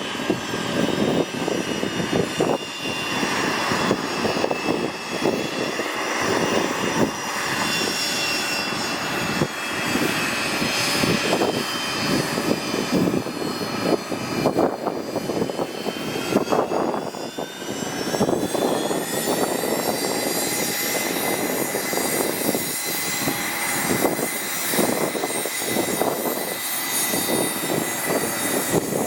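Cessna 207's single piston engine and propeller running at takeoff power. Its tone rises in pitch about two-thirds of the way through, then holds steady.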